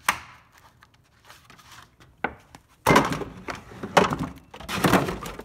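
Plastic gallon milk jug handled close to the microphone: a knock, then three loud, rough crinkling scrapes of the plastic about a second apart.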